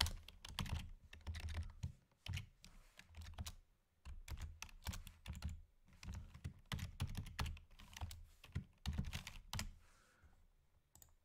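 Computer keyboard typing in quick bursts of keystrokes, with short pauses about four seconds in and a lull near the end.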